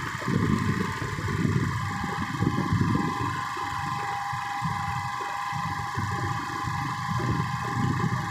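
A vehicle running on the move: an uneven low engine and road rumble, with a steady high whine above it that gains a thin extra tone about two seconds in.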